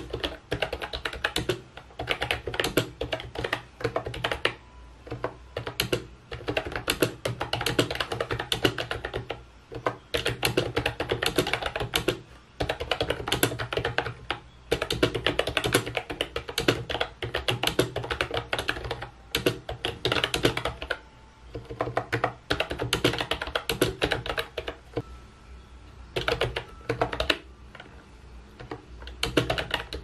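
Typing on an Ajazz 308i keyboard with round typewriter-style keycaps: rapid key clacking in bursts with short pauses and a quieter stretch near the end, over soft background music.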